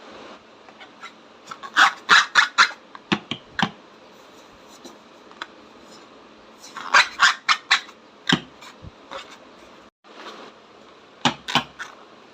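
Slime being squished and mixed by hand: three bursts of quick wet crackles and pops, separated by quieter stretches.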